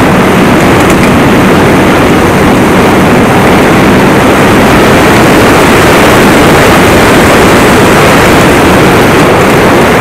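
Snowmobile engine and track running steadily at trail speed, a loud, even noise with a low steady hum beneath it.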